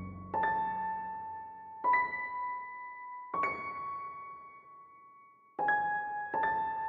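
Slow background music: single piano-like keyboard notes struck one at a time, five in all, each ringing out and fading before the next.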